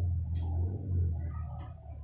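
Steady low room hum with a few faint sharp clicks as a laptop is worked by hand.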